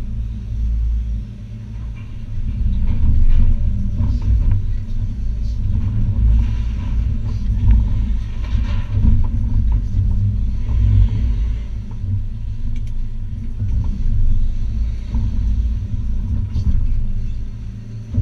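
Hitachi ZX280 excavator's diesel engine and hydraulics running under load, heard from inside the cab as a steady low rumble that swells and eases with the work. Scattered faint knocks from the bucket and rubble.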